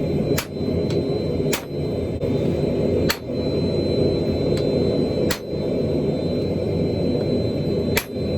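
A blacksmith's forge running with a steady low rush and a thin high whine over it, while hammer blows on hot steel land sharply every second or two.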